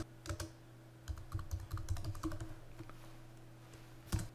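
Keystrokes on a computer keyboard: two quick runs of key presses in the first three seconds, then a single louder keystroke near the end.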